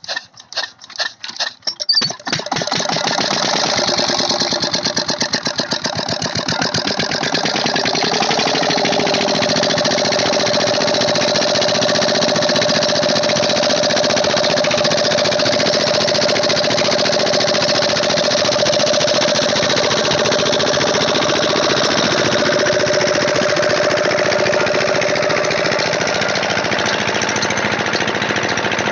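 Engine of a sugarcane crusher being started: a run of separate firing strokes that come faster and catch about two seconds in, then running steadily with a fast, even chugging. A steady whine joins it a few seconds later.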